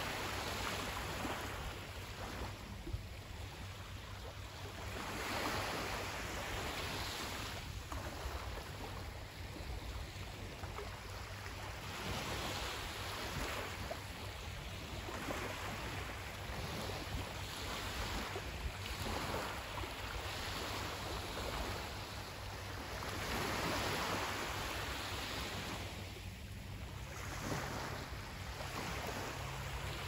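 Sea waves washing onto the shore, the hiss of water rising and falling every few seconds over a steady low rumble.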